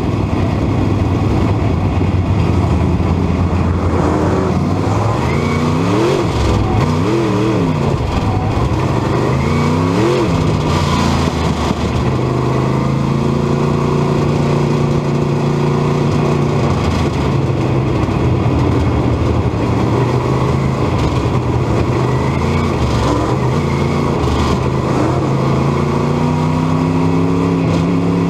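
Dirt modified race car's V8 engine at race speed, heard from inside the cockpit. The revs drop and climb back several times as the throttle is lifted and reapplied, hold steady for a long stretch in the middle, and rise again near the end.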